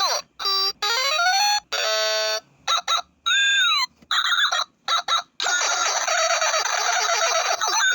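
Whack-a-mole keychain toy playing its electronic sound effects: short beeps, pitch sweeps rising and falling, a quick run of stepped tones and a warbling tone, then a longer buzzy jingle from about halfway through to near the end.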